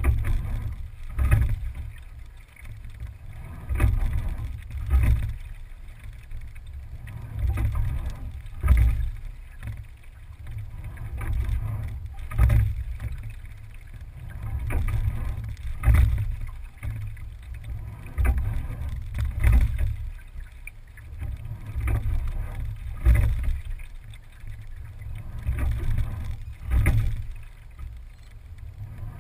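Single scull being rowed, heard from a camera mounted on its stern: a knock from the oars in their oarlocks and a swell of low rumble with each stroke, about one stroke every three and a half seconds.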